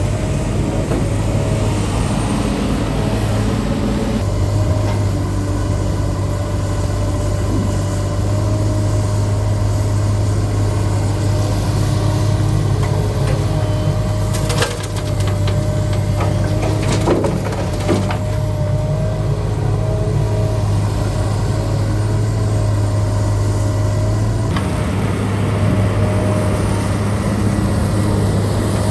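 Heavy diesel machinery engine running steadily under load, with a few sharp knocks and clanks partway through.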